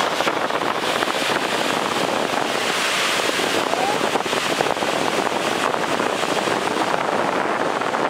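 Steady rushing roar of a waterfall plunging into a gorge, mixed with wind buffeting the microphone.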